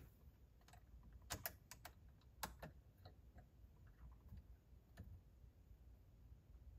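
A few faint, scattered clicks and taps of hands adjusting and tightening a dash camera on its metal mount bracket.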